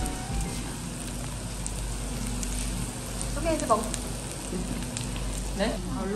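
Gopchang and vegetables sizzling on a hot stone grill pan: a steady frying hiss with fine crackles. Short bits of voice come in twice, about halfway and near the end.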